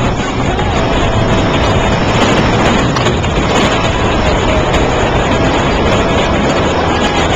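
Airflow rushing over the microphone of a camera carried in paraglider flight: a loud, steady rush of wind noise.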